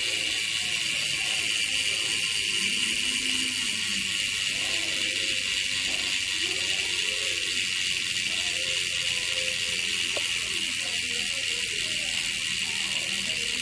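Novatec D772SB bicycle rear freehub spinning freely, its pawls clicking against the ratchet ring so fast that they make one steady, high-pitched buzz.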